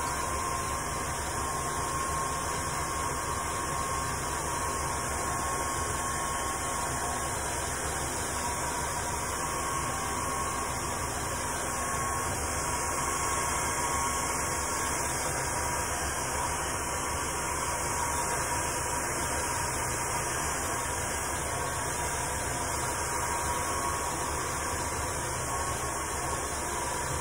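Hand-held hair dryer running steadily: a rush of blown air with a faint, wavering motor whine.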